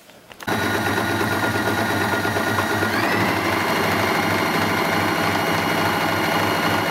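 Janome Green 19 electric sewing machine stitching a short, narrow zigzag. The motor and needle run steadily from about half a second in and speed up a little about three seconds in, then stop suddenly near the end.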